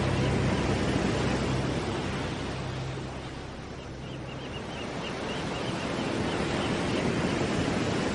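Ocean surf washing in a steady wash, a beach-wave recording within the background track, with a low held music note that stops about halfway through and faint high chirps near the middle.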